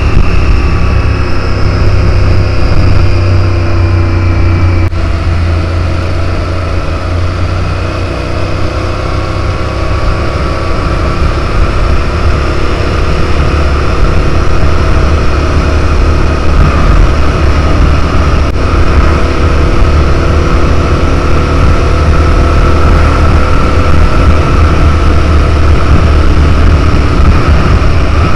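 Motorcycle engine running at a steady cruise with heavy wind rumble on the microphone and road noise. The engine note eases slightly a few seconds in, then holds steady.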